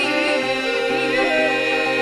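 Recorded a cappella singing by several voices: a low drone held steady beneath a wavering, ornamented upper voice.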